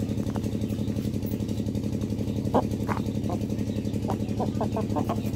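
A small engine running steadily with a fast, even pulse. Over it come a few short clucks from the chickens, in scattered clusters.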